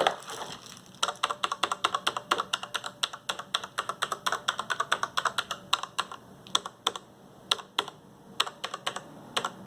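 Keys of a Kinesis Freestyle Edge RGB split mechanical keyboard with Cherry MX switches being pressed: a quick run of clacking keystrokes for several seconds, then slower single presses.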